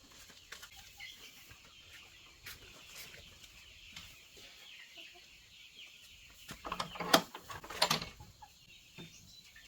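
Chickens clucking, with a louder flurry of clucks about seven to eight seconds in, over a faint steady high-pitched hiss.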